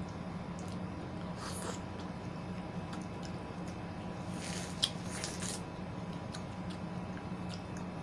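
Close-up eating of ripe yellow watermelon, melon and pineapple: small wet bites, chewing and mouth clicks, with a louder stretch of biting and chewing around the middle that holds one sharp click. A steady low hum runs underneath.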